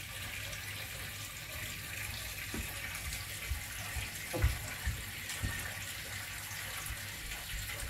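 Steady rushing hiss of a pot of water heating toward the boil on the stove, with a few faint soft knocks.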